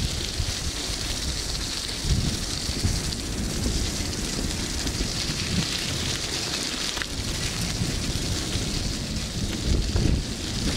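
Wind buffeting the microphone: an uneven low rumble that swells in gusts, a strong one about two seconds in and again near the end, over a steady hiss.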